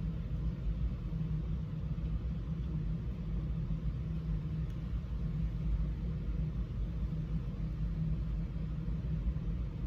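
Steady low rumbling hum.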